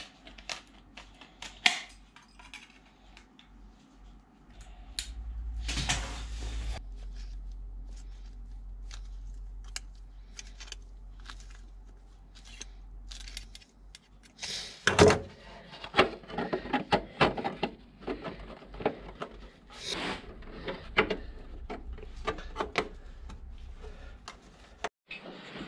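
Hand tin snips cutting a patch out of thin sheet steel, a string of sharp clicks, then the steel patch clattering and knocking against the van body as it is fitted into the rusted rear corner. A brief loud rushing noise comes about six seconds in.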